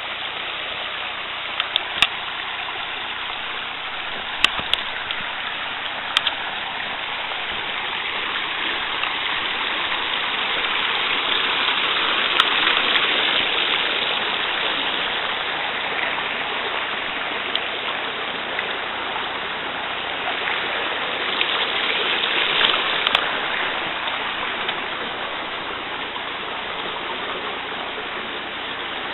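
Creek water rushing steadily over rocks, swelling a little in the middle, with a few sharp clicks.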